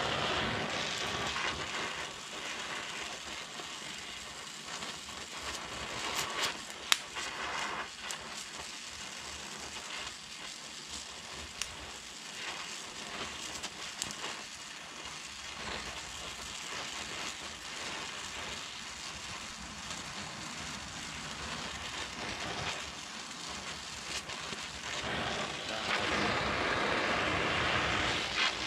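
Oxy-acetylene welding torch burning with a steady hiss and crackle as thick steel plate is welded onto a truck frame, with a few sharp clicks along the way; the hiss grows louder near the end.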